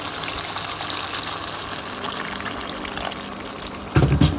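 Water poured in a steady stream into a pot of spinach and meat curry. About four seconds in there is a short loud thump.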